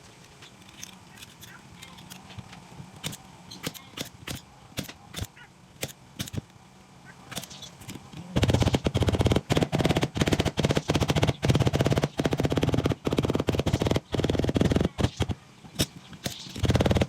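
Scattered light taps and clicks, then about eight seconds in a power drill starts and runs loudly in bursts with brief pauses.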